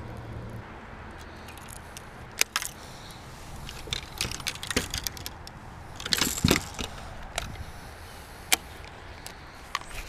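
Handling noise of fishing gear and movement on a boat deck: scattered sharp clicks and light knocks, with a short cluster of them about six seconds in.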